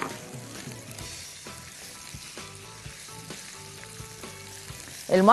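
Onions with green and hot peppers sizzling quietly in oil in a pan, kept on a gentle heat to soften rather than brown.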